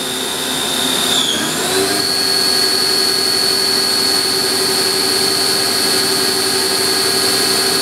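Sharnoa HPM 30 vertical machining center's spindle running with a steady high-pitched whine, which about a second in dips briefly and then climbs to a higher steady pitch as the spindle speeds up from 5,000 to 6,000 rpm. The machine is still cold from sitting, which the owner says makes it a little louder than once it has run a few minutes.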